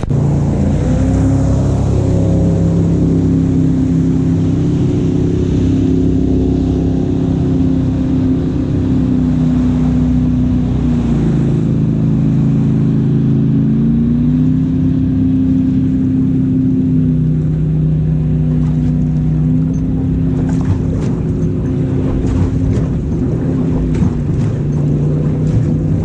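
Evinrude outboard motor running steadily; its note drops for a few seconds about halfway through and then climbs back up.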